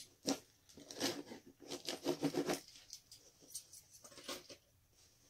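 House key scraping and slicing through the packing tape of a cardboard box: a run of irregular scratches and ticks, most of them in the first half, a few more around four seconds in.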